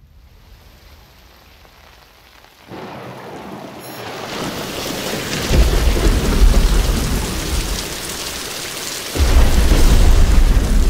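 Thunderstorm: rain starts faintly and builds to a heavy downpour, with a long rumble of thunder about five and a half seconds in and a louder one about nine seconds in.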